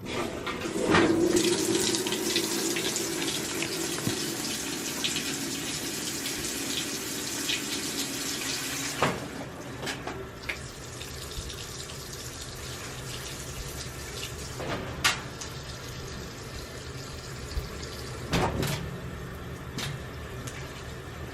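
Water running from a tap into a sink for about eight seconds, then shut off, followed by a few scattered knocks.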